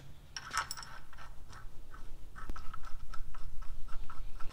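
Ratchet clicking as the cam gear bolts are run in on a Dodge SRT-4 engine's cam gears: a quick, even run of metallic clicks, several a second, growing louder over the first few seconds.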